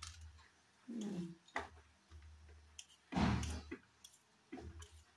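Small knife clicking and scraping as taro roots (arbi) are peeled by hand, with pieces set down on a steel plate. There are scattered light clicks and a louder thump about three seconds in.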